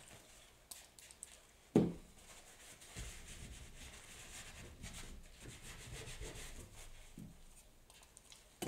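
Paper towel rubbing and dabbing over wet acrylic paint on paper, lifting the glaze to lighten areas: a soft, uneven scrubbing. One brief louder bump about two seconds in.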